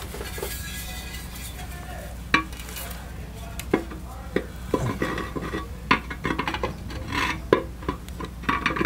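Royal Enfield Bullet's metal primary chain cover being worked back onto the engine case by hand: irregular metallic knocks, clinks and scrapes. They start about two seconds in and come more often toward the end.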